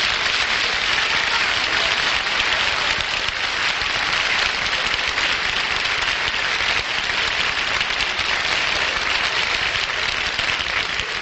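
Live studio audience applauding steadily.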